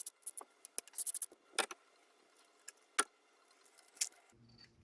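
Hand ratchet clicking in short quick runs, then several single sharp metallic clicks and clinks, as the connecting-rod bearing caps are being unbolted to check the rod bearing shells.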